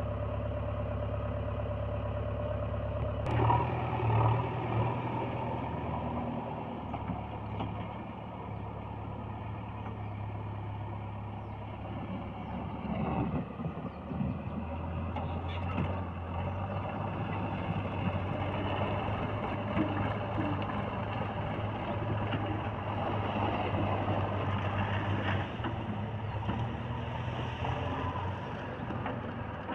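Diesel engines of a JCB 3DX backhoe loader and a Mahindra 275 DI tractor running at work, a steady low engine drone throughout. About three seconds in, a sudden louder clatter cuts in and peaks over the next two seconds.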